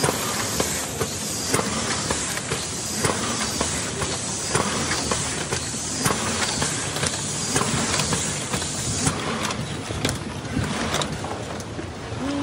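Automatic cake cartoning machine running: a steady mechanical clatter with a hiss, and a sharp knock about every second and a half as it cycles.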